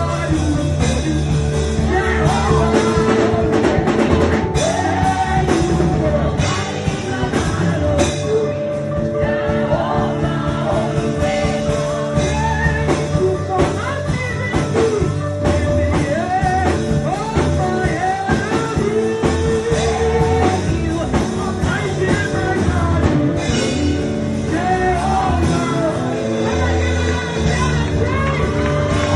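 Gospel praise-and-worship music: singing over a band with steady bass and drums.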